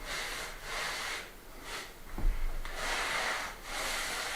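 Cloth wiping over an oiled wooden worktop: a series of back-and-forth rubbing strokes, each about half a second long, spreading the oil and smoothing out brush marks. A single dull thump a little over two seconds in.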